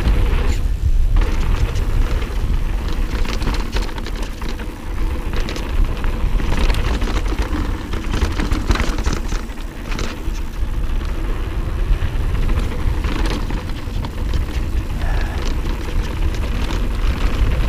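Wind rushing over an action camera's microphone as a mountain bike runs fast down a dirt trail. Under it are tyre noise on the dirt and scattered clicks and rattles from the bike.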